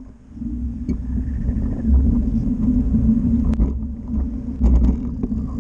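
Riding noise from an electric bicycle: a steady low rumble of tyres and motion, with wind gusting on the microphone about two seconds in and again near the end, and a few light clicks.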